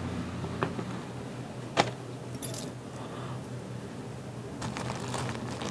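Small clicks and light metallic clinks of objects being handled, with one sharp click about two seconds in and a few fainter ones near the end, over a steady low hum.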